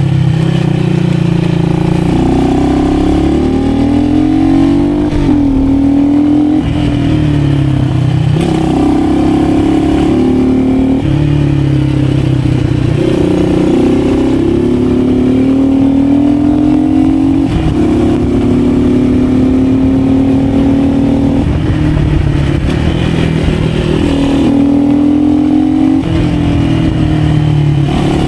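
Motorcycle engine under way, its note climbing steadily and then dropping back every few seconds as the rider accelerates and shifts or rolls off. A steady rush of wind and road noise runs underneath.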